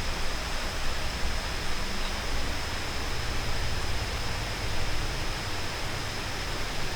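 Steady, even hiss of background noise with a faint, thin high-pitched tone running under it; no knocks, steps or other distinct events.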